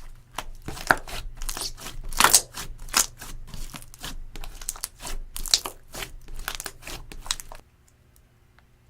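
Clear slime with eyeshadow and glitter mixed in, being squished and worked by hand: a quick, irregular run of sticky pops and crackles that stops suddenly near the end.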